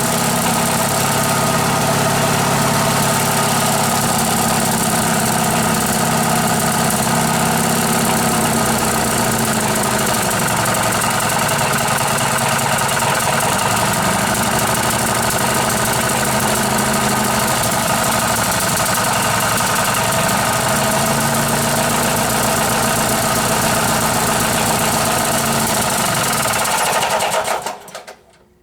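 18 hp Briggs & Stratton cast-iron-bore horizontal opposed-twin engine running, its speed wavering through the middle, then shut off near the end. A knock heard at shutdown comes from the loose plastic cooling blower bolted to the flywheel, not from the engine itself.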